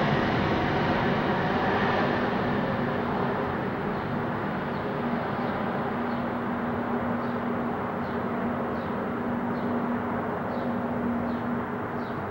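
Four-engine Airbus A340 jet airliner on approach to land, its engine noise fading as it flies away. The sound grows quieter and duller, with a steady low hum running through it.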